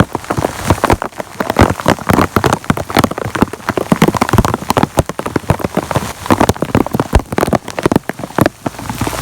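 Rain falling, its drops striking a surface close by in a dense, irregular stream of sharp hits.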